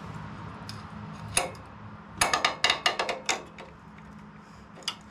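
Sharp metal clicks and clinks from a flat steel bar, used as a homemade valve spring compressor, working against a valve spring on a Tecumseh OHV engine's cylinder head. There is one click about a second and a half in, a quick run of a dozen or so clinks over the next second or two, and a last click near the end.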